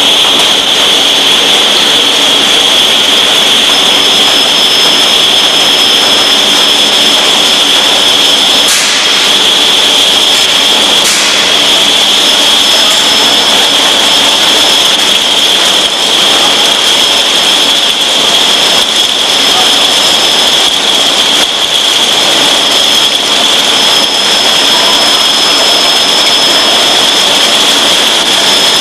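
Pilfer-proof cap making machinery, with its conveyor and elevator switched on, running: a loud, steady whirring noise with a high whine. Two brief high squeaks come near the middle.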